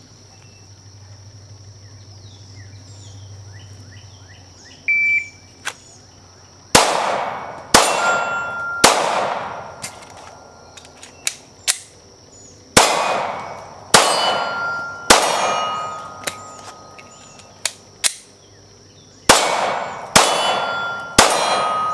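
A shot timer gives one short beep, then a Glock 19 9mm pistol fires nine shots in three strings of three, about a second apart. Steel targets clang and ring after the hits.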